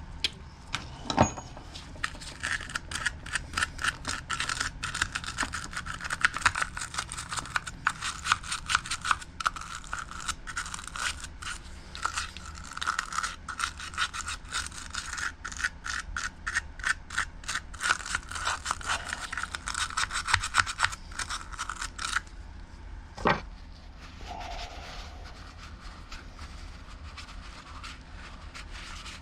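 Rapid back-and-forth scrubbing strokes on a small engine part, several a second, stopping about 22 seconds in, with a single knock just after.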